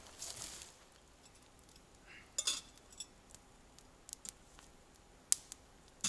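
Quiet forest with a brief rustle near the start, then a handful of scattered sharp clicks and snaps.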